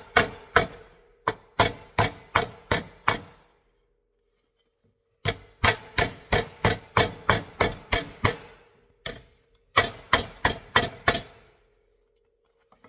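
Hammer blows on sheet metal, beating down the ripples left by a tucking fork to lock in the tucks and shrink the edge. The blows are sharp, about three a second, in three runs separated by short pauses.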